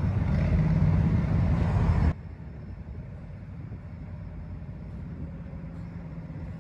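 Diesel locomotives of a freight train passing close by, their engines rumbling loudly with a steady low engine tone. About two seconds in the sound drops abruptly to a much quieter low rumble of the train rolling past.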